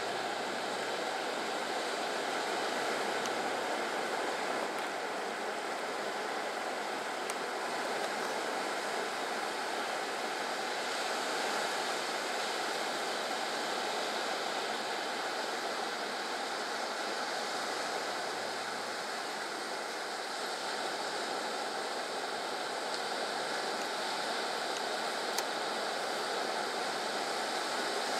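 Steady rush of surf breaking on the beach, mixed with shallow stream water running over stones.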